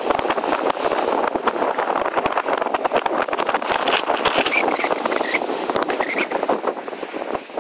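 Strong wind blowing across the microphone: a steady rough noise, crackling with constant small gusts.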